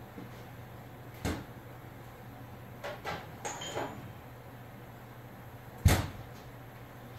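A few separate knocks and clunks over a steady low hum: one sharp knock about a second in, a short run of lighter knocks around three seconds in, and a heavier thump about six seconds in.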